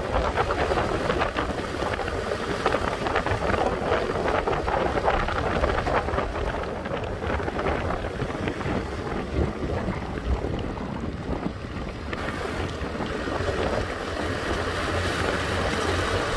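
Wind buffeting the microphone, a steady low rumble with a crackling rustle over it.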